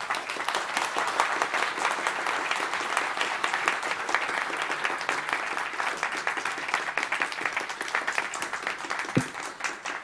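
Audience applauding: steady clapping from many hands that thins out slightly near the end.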